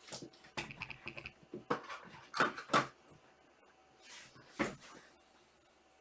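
Handling noise as a laptop's charger is plugged in: a run of short knocks and clicks, the loudest a little past the middle and one more near the end.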